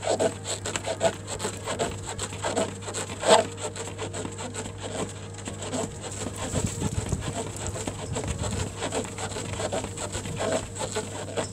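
Quick, uneven scuffing and rubbing of a man's trainers and hands on the floor as he does mountain climbers, several strokes a second, with one harder scuff about three seconds in.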